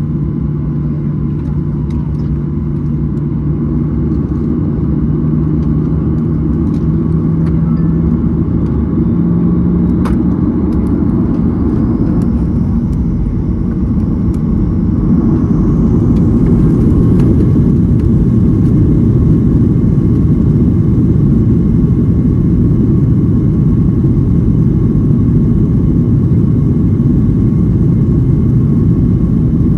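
Boeing 737-800's CFM56-7B jet engines heard from inside the cabin, spooling up toward takeoff thrust. The low rumble grows louder over the first fifteen seconds or so, with a faint whine rising in pitch about halfway through, then holds steady and loud as on the takeoff roll.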